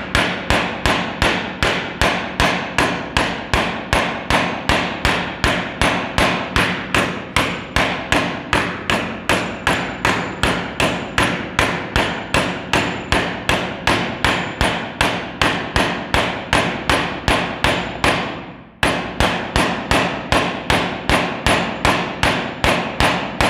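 Hammer tapping a new 6602 ball bearing into the bearing seat of a ceiling fan's cover. It strikes lightly and evenly, about three taps a second, with one short break about three quarters of the way through before the taps resume.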